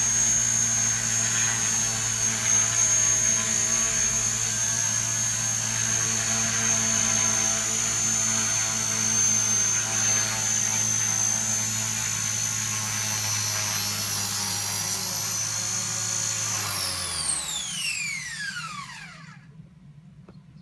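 Radio-controlled model helicopter hovering, a steady high-pitched motor whine over the hum of its rotor blades. Near the end the whine and hum sweep steeply down in pitch as the rotor spins down after landing, then stop.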